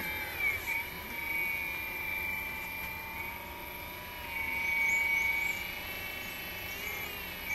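Hydraulic pump of a 1/14-scale RST Models CAT 330F RC excavator whining steadily as the upper body swings around, its pitch dipping briefly under load near the start and again near the end.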